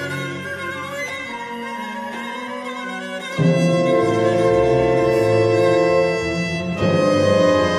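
Symphony orchestra playing, bowed strings holding sustained notes. About halfway in, the music steps up suddenly in loudness with full, low sustained chords.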